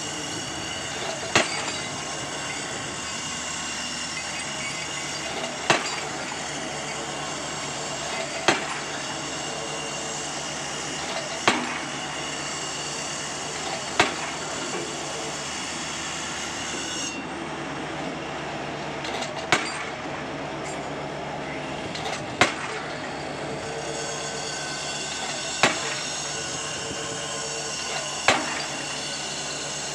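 Diesel pile hammer striking a PHC spun concrete pile, a sharp bang about every three seconds over the steady drone of heavy machinery.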